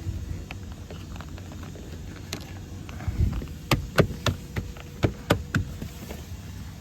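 A run of sharp clicks and knocks, about eight over three seconds: car interior plastic trim being handled, pressed and snapped into place.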